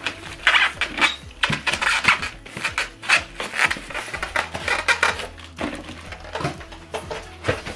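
Handling noise from unpacking two plastic-wrapped speakers from a polystyrene packing insert: crinkling plastic, the foam rubbing, and irregular clicks and knocks as the speakers are set down on the table.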